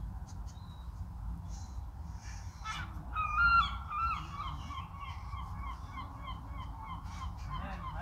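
A seagull calling: one loud yelping note about three seconds in, then a quick run of shorter, slightly falling notes, several a second, that carries on to the end. Under it a low steady rumble.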